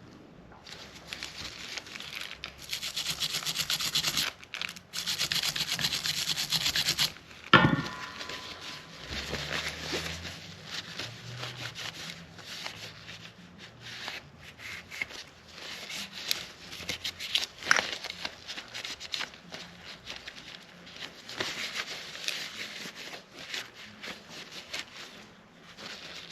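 Small cleaning brush scrubbing the parts of a Glock 44 .22 LR pistol with solvent, in quick rubbing strokes, hardest in two stretches near the start. A sharp knock about a third of the way through, then lighter scrubbing.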